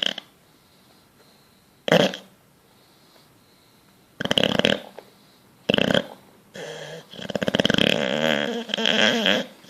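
Bulldog snoring in its sleep: short snorts at the start and about two seconds in, then longer rattling snores, the last and longest lasting about three seconds near the end.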